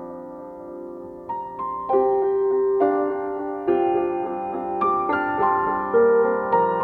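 Slow, soft piano music. A held chord fades away, then single notes and chords are struck every half second to a second in a calm melody.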